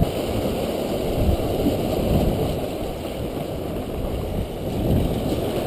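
Wind buffeting the microphone in a steady low rush, over waves washing against the jetty's rocks.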